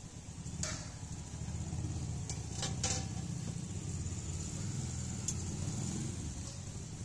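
Jalebi frying in a large steel pan of oil under a steady low rumble. A few sharp metal clinks come through, a cluster of them near the middle, as a steel lid is set on the batter pot and tongs are handled.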